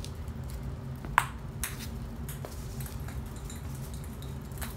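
Small rubber ball bouncing on a bare concrete floor: one sharp ringing ping about a second in, then lighter taps as it bounces and rolls away.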